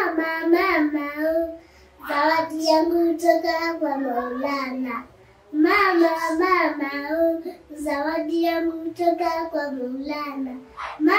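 A young boy singing a song without accompaniment, in phrases with short pauses about two and five seconds in.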